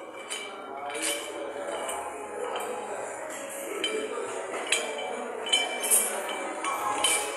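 Metal gym weights clinking and clanking: several sharp metallic knocks at irregular intervals, each with a short ring, over a steady background murmur.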